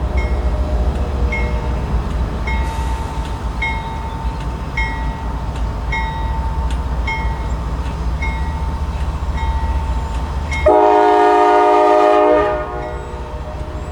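GE AC44C6M diesel locomotive's mechanical bell ringing steadily about once a second over the low rumble of the engine as the locomotive leads a heavy coal train away. About three-quarters of the way through, the locomotive's multi-chime air horn sounds one loud blast of about two seconds, and the bell keeps ringing after it.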